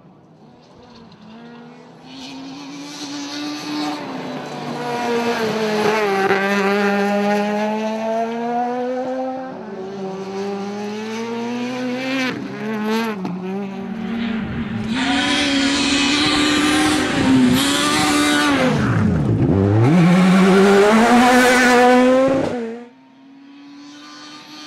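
Ford Fiesta S2000 rally car's 2.0-litre four-cylinder engine revving hard on gravel, its pitch rising and falling with gear changes over several passes, with tyre and gravel noise loudest in the second half. The sound cuts off sharply near the end, leaving a quieter, steadier engine.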